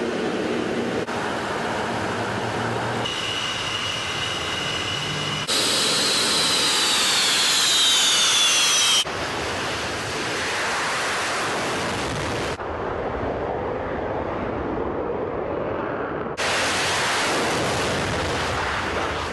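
Jet engines of Su-30 fighters and Su-24 bombers running at high power during takeoff runs, in several short clips that cut abruptly from one to the next. A steady high whine sits over the engine noise about three seconds in, then a whine falling in pitch forms the loudest stretch.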